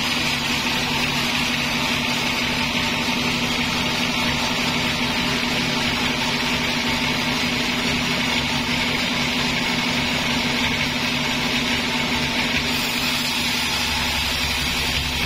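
Sawmill band saw running and cutting lengthwise through a large log: a steady machine hum with the hiss of the blade in the wood. Near the end the sound shifts, and a deeper rumble comes in.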